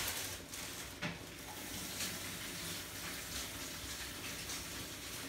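Pot of mussel soup simmering, a steady bubbling of the broth around the shells, with one light click about a second in.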